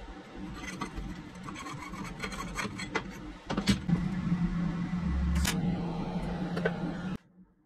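Small steel vise being handled and assembled: scattered metal clicks and knocks over a steady low hum, louder from about halfway through, cutting off suddenly near the end.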